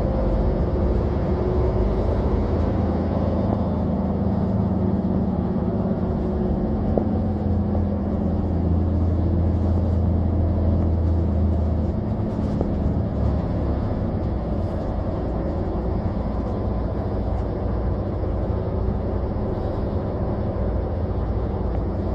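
Bus engine and cabin noise heard from inside the bus: a steady low drone that eases off about halfway through as the bus draws into the terminal, with a few faint rattles.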